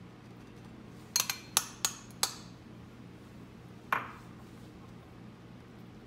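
A metal spoon clinking against dishes while spreading mayonnaise: five quick ringing clinks a little after one second in, then a single clink about four seconds in.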